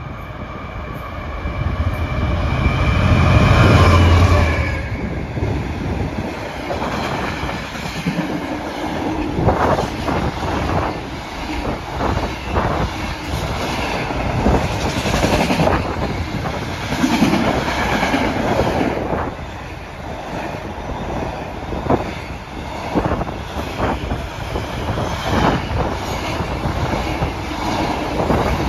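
DB Schenker Class 66 diesel locomotive 66086, with its two-stroke V12 engine, passes loudest about four seconds in. It is followed by a long train of container wagons rumbling past with repeated clicks of wheels over the rail joints.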